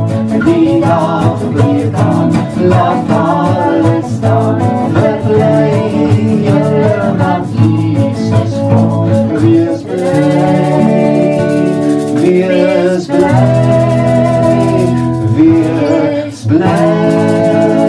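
A man singing a gospel song to his own strummed acoustic guitar; about ten seconds in the strumming gives way to long held notes.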